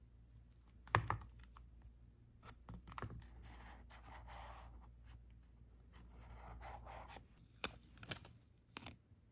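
Paper and journaling supplies handled on a desk: scattered sharp taps and clicks, the loudest about a second in, with two stretches of paper rustling of about a second each.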